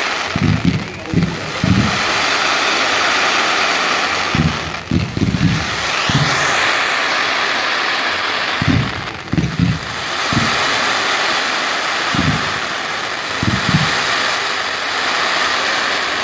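Fireworks display: a dense, steady crackling hiss with clusters of short low thuds from shells bursting, and a rising whistle about six seconds in.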